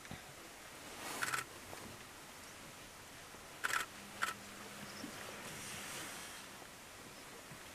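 Male greater sage-grouse strutting display: a brief swishing rustle of wings against the breast feathers about a second in, then two sharp pops from the inflated air sacs about half a second apart, followed by a low steady tone lasting about a second.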